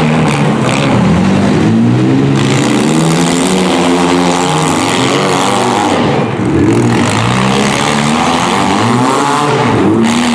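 Several small-car demolition derby engines running hard, revving up and down over one another.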